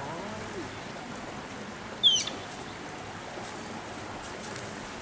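Malayan tapir giving one short, high-pitched squeak that falls in pitch, about two seconds in. A steady hiss runs underneath.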